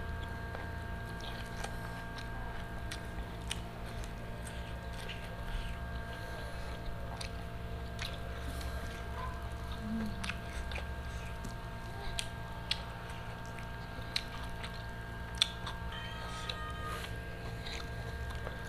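Close-up eating sounds: chewing, with scattered sharp clicks and smacks as grilled chicken is picked off the bone by hand. A steady low hum runs underneath.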